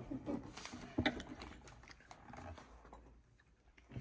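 A few faint clicks and knocks of a metal spoon against a ceramic bowl as ice cream is scooped and eaten, the clearest about a second in.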